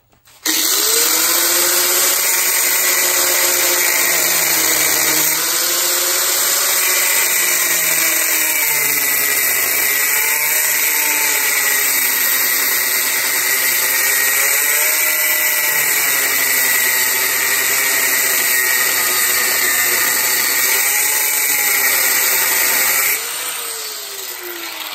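Angle grinder with an abrasive cutoff wheel starting up about half a second in and grinding against sandstone, its whine wavering up and down as the disc bites into the rock. The wheel barely cuts, only heating the stone and throwing sparks. Near the end it is switched off and spins down with a falling whine.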